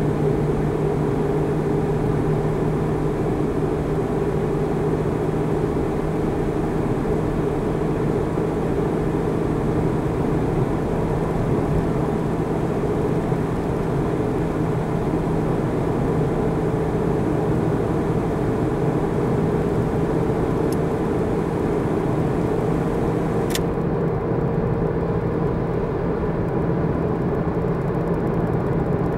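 Steady engine drone and tyre and road noise heard inside a car cruising at motorway speed, with a constant low hum under the rumble. Two brief ticks come near the end, and after the second the hiss turns duller.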